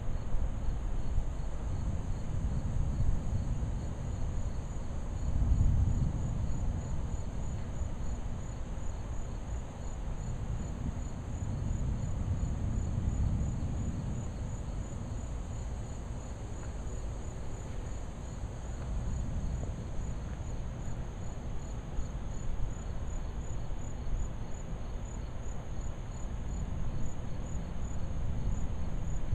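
Insects chirping in steady, evenly spaced pulses, one high chirp and a fainter, lower one, over a low rumble that swells and fades a few times.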